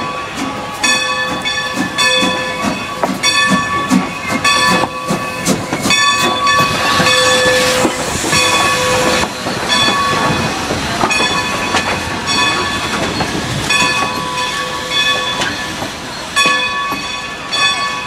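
Strasburg Rail Road No. 90, a 2-10-0 steam locomotive, moving slowly past with its bell ringing over and over. Its exhaust chuffs in the first few seconds, and there is a hiss of steam midway as the engine goes by.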